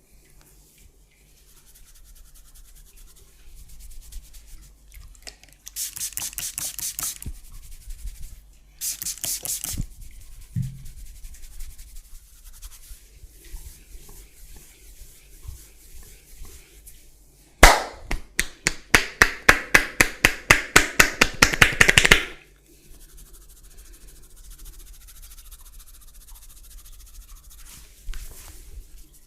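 A barber's hands massaging a client: two short spells of brisk rubbing on skin and hair. Later comes a sharp click, then a fast, even run of slaps or chops at about five or six a second for some four seconds.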